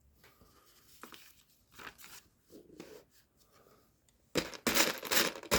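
Loose Lego Technic pieces being handled and sorted through: faint rustling and small clicks, then louder, irregular rustling from about four seconds in.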